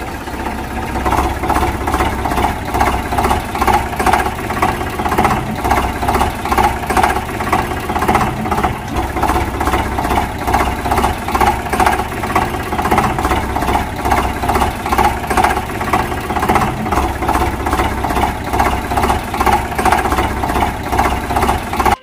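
Tractor engine sound running steadily with an even, pulsing chug of a few beats a second, cutting off sharply at the end.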